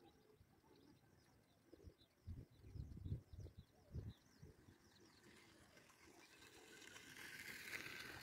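Faint birds chirping over a near-silent rural background, with a few low thumps a couple of seconds in. From about halfway through, a soft hiss slowly grows louder: an approaching MEMU electric train's running noise drawing near.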